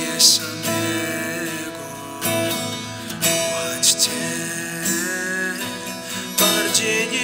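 Acoustic guitar playing a worship song, with a voice singing long, wavering held notes at times.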